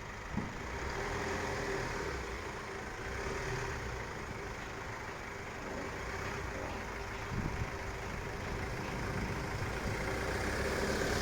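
GAZelle van's engine running steadily, turning the driveline to spread freshly added oil through the rear axle's final drive while its bearings are still dry.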